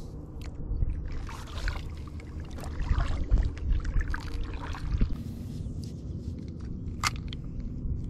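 Kayak paddle strokes in the lake water, the blades dipping and lifting in a run of strokes, with one short sharp knock near the end.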